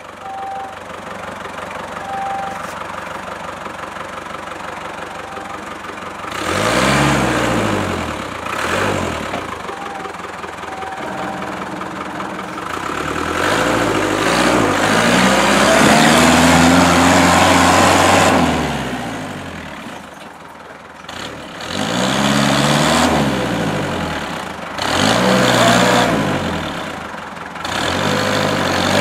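Land Rover Series off-roader's engine idling, then revved again and again, each burst rising and falling in pitch, as it works under load through a deep muddy rut. The longest push comes about halfway through.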